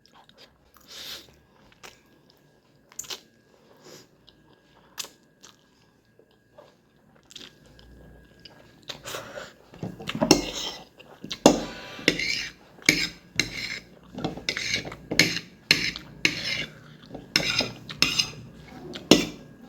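Eating utensils tapping, clinking and scraping against a dish, with some chewing. The taps are sparse at first, then from about halfway they come in a quick, busier run.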